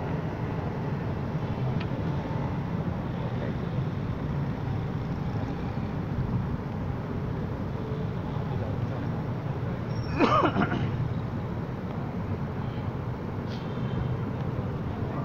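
Crowd noise from a large outdoor gathering: a steady low murmur and rumble. About ten seconds in, one brief loud pitched sound rises and falls, like a single call from the crowd.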